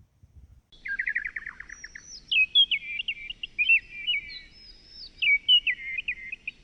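A songbird singing. It opens about a second in with a fast run of short falling notes, then goes into a varied warble of clear, sliding whistled notes.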